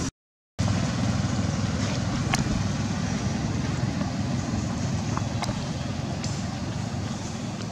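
Steady low outdoor rumble with a few faint clicks, after a half-second gap of silence at the start.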